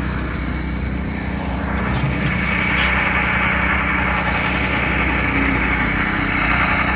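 Concrete saw's small engine running steadily on the slab, with a higher hiss coming in about two seconds in and holding.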